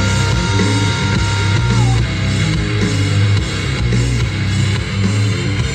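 Rock music with electric guitar and a steady beat, played loud through an Eltronic 20-53 portable party speaker with twin 10-inch drivers and picked up from the room. A held note slides down about two seconds in.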